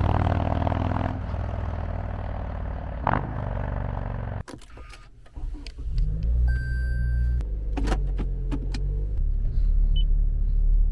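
Harley-Davidson Street Glide's V-twin engine running on its stock exhaust, cutting off abruptly about four seconds in. After it come a few clicks, a short electronic chime and a car engine starting and running with a low rumble.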